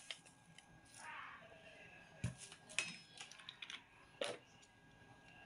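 Faint handling sounds as sugar is added to raw pork and liver in a stainless steel pan: a short soft pour of grains about a second in, then scattered light clicks and taps.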